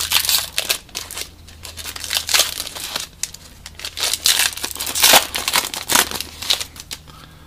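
A foil trading-card pack being torn open and crinkled by hand: irregular crackling rustles, loudest about five seconds in and dying down near the end.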